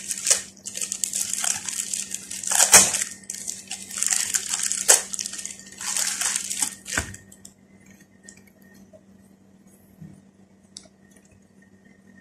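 Thin clear plastic packaging crinkling and rustling in bursts as it is handled and opened to take out a bra. The crinkling dies away about seven seconds in, leaving only faint handling sounds.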